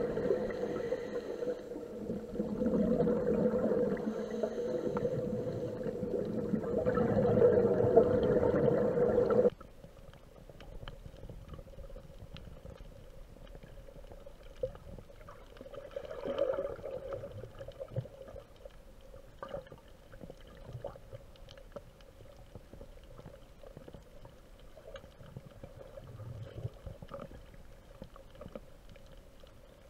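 Underwater sound picked up through a camera housing: a loud, muffled bubbling rumble with a steady hum. About nine seconds in it cuts off suddenly to a quiet underwater background with faint scattered clicks.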